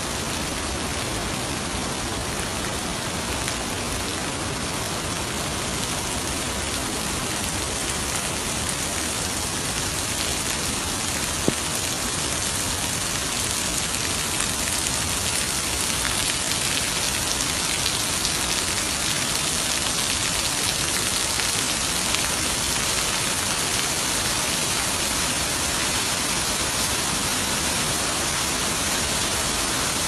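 Steady heavy rain, with rainwater splashing as it pours off a roof edge; it grows slightly louder and hissier about halfway through. One sharp click near the middle.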